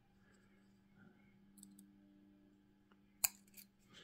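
Hobby knife blade clicking against a thin photo-etched metal fret while a seatbelt part is cut free: a few faint ticks, then one sharp click a little over three seconds in and two smaller ones, over a faint steady hum.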